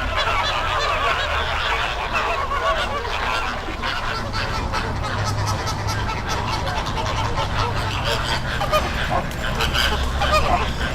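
A flock of American flamingos honking and chattering, with many goose-like calls overlapping without pause.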